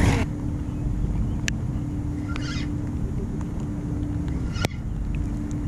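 Spinning reel being cranked to reel in a hooked fish, giving a steady whirring hum over low background rumble, with a couple of sharp clicks and short rustles.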